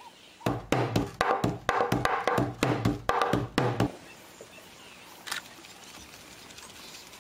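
Wooden hand drum beaten by hand in a quick, rhythmic pattern for about three seconds, then stopping; faint outdoor background after.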